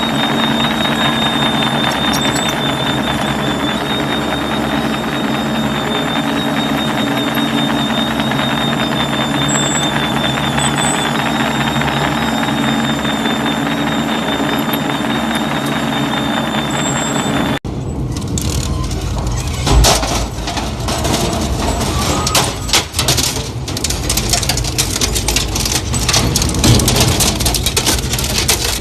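Industrial twin-shaft shredder running with a steady hum and a high steady whine. About two-thirds of the way in, the sound changes to a shredder tearing metal pipe, with irregular heavy clanks and crunches.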